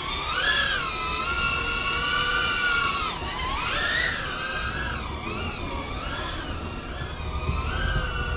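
Small 2-inch FPV quadcopter with 1103 11000KV brushless motors flying: a high motor whine that swoops up and down in pitch with throttle, with big rises near the start and about four seconds in, then quicker, smaller wobbles.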